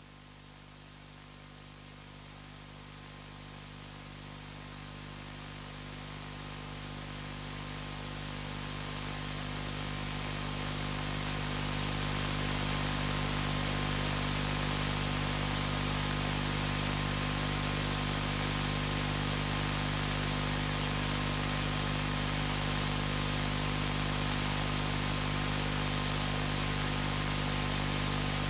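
Steady electrical hiss and static with a low hum underneath, growing louder over the first twelve seconds or so and then holding steady.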